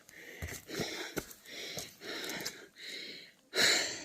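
A hiker breathing hard on a steep uphill climb: rhythmic heavy breaths about once a second, with one loud, forceful exhale near the end, and a few sharp clicks in the first half.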